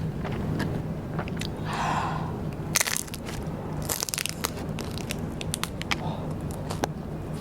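Close-miked eating of Vietnamese rice paper (bánh tráng): crunching bites and chewing with small crackling clicks, the loudest crunches about three and four seconds in.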